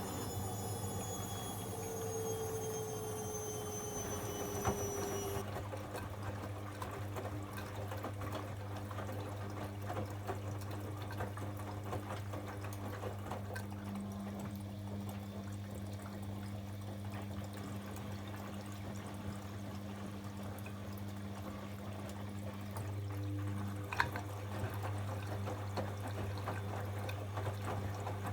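Bosch Avantixx 7 washing machine running a wash: water running and splashing inside the machine over a steady low hum. A falling whine fades out within the first five seconds.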